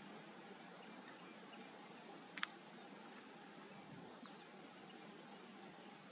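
Faint open-air ambience with thin, high bird chirps now and then, and one sharp click about two and a half seconds in.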